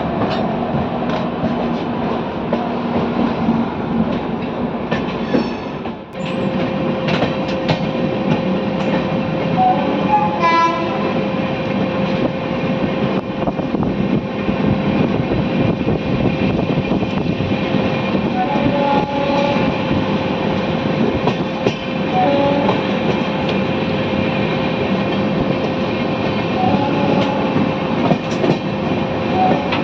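Shatabdi Express train running along the track: a continuous rumble and clatter of wheels on rails with scattered clicks, and a steady hum through most of it. About six seconds in, the sound dips briefly.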